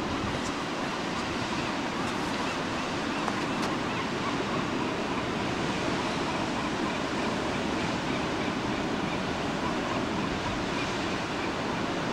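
Ocean surf breaking and washing around large coastal rocks: a steady, continuous rush of waves.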